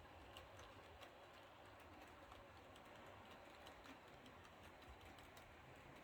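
Model train running very quietly: a class 66 locomotive model hauling stone wagons, with faint, irregular light clicks of wheels over the track and a low steady hum.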